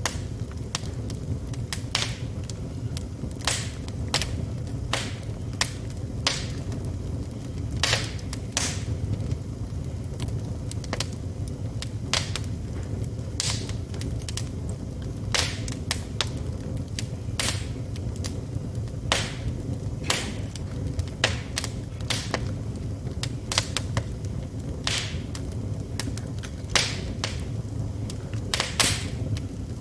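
Wood fire burning in a fireplace: irregular crackles and sharp pops from the burning logs over a steady low rumble of the flames.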